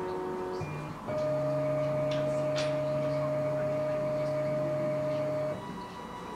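Clay 3D printer's stepper motors whining as it prints, each tone held steady, then jumping to a new pitch about a second in and dropping to a quieter, higher tone near the end, with a few faint clicks.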